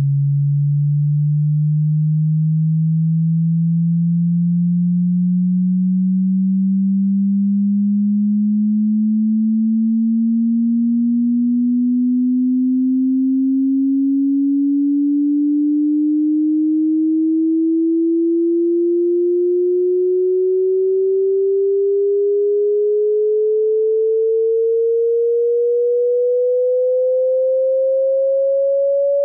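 An electronic sine tone, a single pure pitch slowly rising from a low hum to a mid-range tone at a steady level, with a faint regular pulsing.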